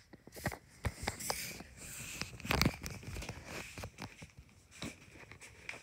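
Handling noise close to the microphone: irregular rustling and scratching with scattered knocks and clicks, loudest about two and a half seconds in.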